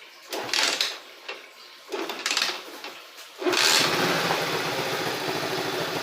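A 50 cc motorcycle being kick-started, its electric start having failed. Two strokes on the kick-start pedal are heard; the engine catches on the second stroke, about three and a half seconds in, and then runs steadily.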